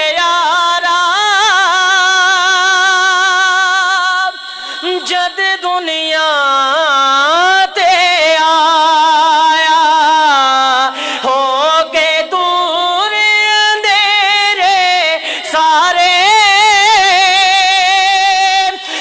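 A man singing a naat into a microphone, unaccompanied, in long held notes and wavering melismatic runs without clear words, with a short break for breath about four seconds in.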